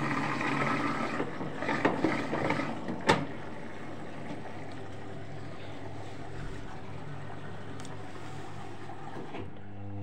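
Arçelik 3320 SA washing machine running, a steady hum with a rushing, water-like noise over it, and a sharp click about three seconds in.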